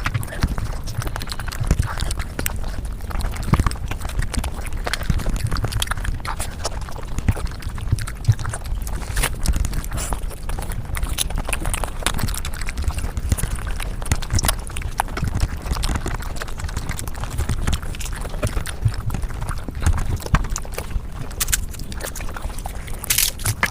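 Mukbang eating sounds (chewing and mouth noises close to the microphone) sped up to five times normal speed: a dense, irregular run of quick clicks over a steady low rumble.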